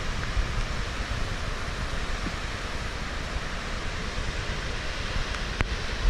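Steady rush of a large waterfall, with wind buffeting the microphone in a strong, uneven low rumble.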